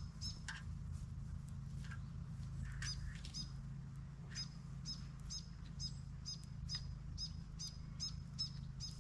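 A small bird calling over and over with a short, high chirp, roughly twice a second, with a few brief pauses, over a steady low hum.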